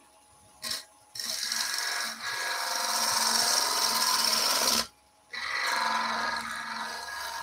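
Wood-turning gouge cutting a long spinning wooden spindle on a lathe: a steady rasping hiss of the cut with a low hum under it, starting just over a second in, breaking off briefly about five seconds in, then resuming. The tool's bevel is kept rubbing to damp vibration in the long, thin work.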